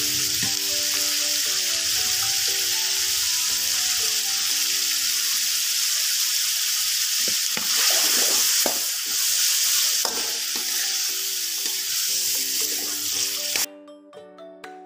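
Chicken and green beans sizzling in a pan of oyster sauce and sweet soy sauce, a metal spatula stirring and scraping through them, louder for a few seconds past the middle. The sizzle cuts off suddenly near the end, leaving light background music.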